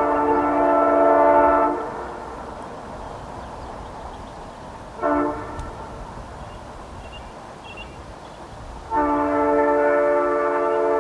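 Air horn of CP 6591, a diesel locomotive, sounding a crossing signal as it passes a highway grade crossing. A long blast ends about two seconds in, a short blast comes at about five seconds, and another long blast starts near nine seconds. The horn's chord of several steady notes sits over the train's running rumble.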